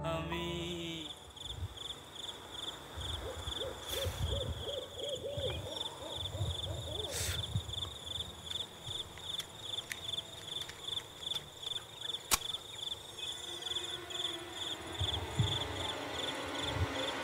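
Night ambience of crickets chirping in a steady, rapid pulse. About three seconds in comes a quick run of short hooting calls that lasts a few seconds, and a single sharp click sounds about twelve seconds in.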